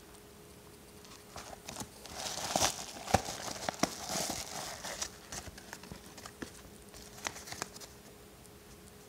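Padded Jiffylite mailer envelope being handled: the paper crinkles and rustles in irregular bursts, busiest a couple of seconds in with a sharp tap, then scattered light clicks and taps as the contents are pulled out.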